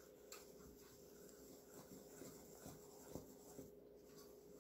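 Faint scraping and soft ticks of a wooden spoon stirring dry flour and salt in a stainless steel mixing bowl.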